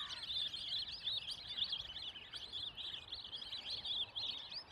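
A flock of lesser whistling ducks (whistling teal) calling, with many short, high whistles overlapping in a continuous chatter.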